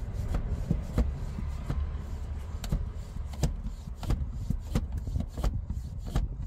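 Small mountain bike hand pump being worked to pressurise an accumulator's air pre-charge: a series of sharp clicks, about two or three a second, over a low rumble.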